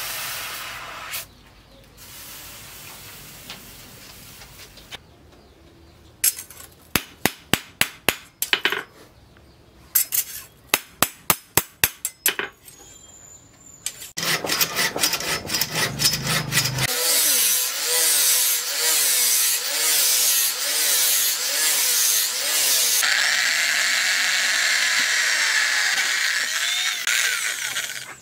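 Steam hissing as the hot steel knife blade is quenched in water. Then two runs of sharp hammer blows on the blade at the anvil. Then a long stretch of sawing at wood in quick, even strokes.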